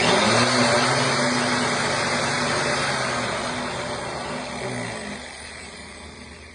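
Makita grinder running while held to a can of chewing tobacco to pack it, a loud, dense motor whir with a low hum. It starts loud, then winds down and fades away over the last few seconds.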